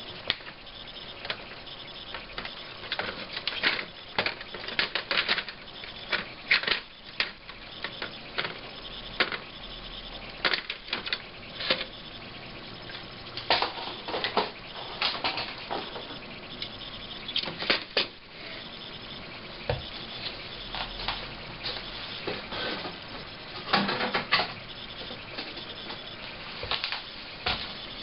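Hand sanding on a laptop's plastic case: irregular scratchy rubbing strokes that come in uneven clusters with short pauses.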